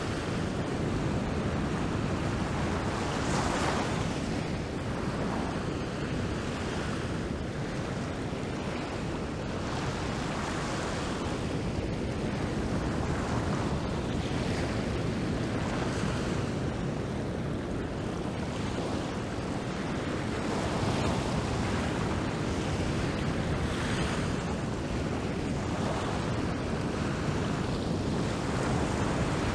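Rough ocean surf breaking over coastal rocks: a steady wash of rushing water that swells every few seconds as each wave comes in.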